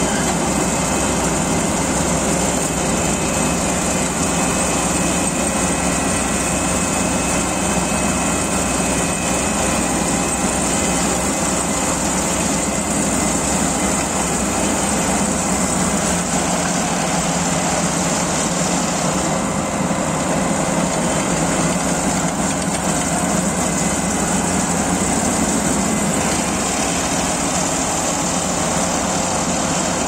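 Kubota AR90 combine harvester running steadily while cutting rice, its engine and its cutting and threshing machinery making a dense, even noise.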